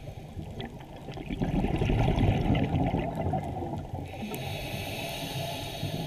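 Underwater bubbling and gurgling with a few faint clicks in the first second, swelling into a louder low rush about a second and a half in and easing off after about three and a half seconds.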